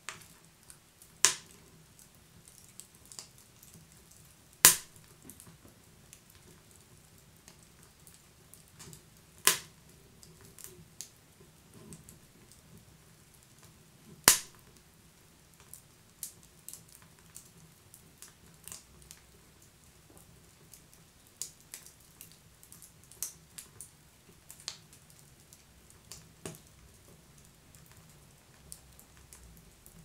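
Wood fire crackling: sharp pops over a faint low hiss, four loud ones spaced through the first fifteen seconds, then smaller, quicker crackles more often.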